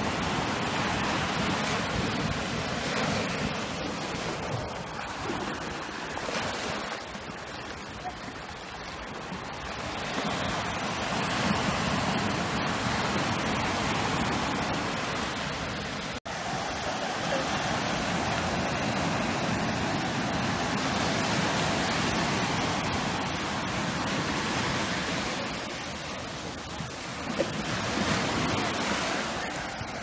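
Sea surf: small waves breaking and foaming up the beach, a continuous rush of water that swells and eases as each wave comes in. There is a split-second dropout about halfway through.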